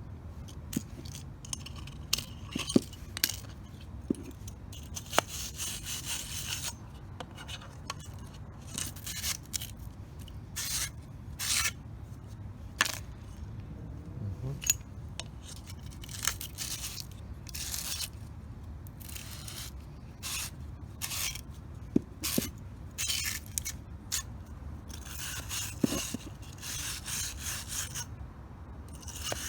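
Hand reamer scraping around the inside edge of a cut end of 3/4-inch EMT steel conduit, deburring it: metal scraping on metal in many short, irregular strokes, with an occasional sharp tick.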